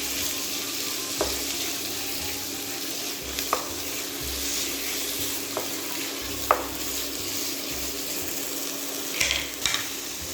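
Food sizzling as it fries in oil in a pan. A utensil stirring it makes a few sharp clicks, the loudest about six and a half seconds in.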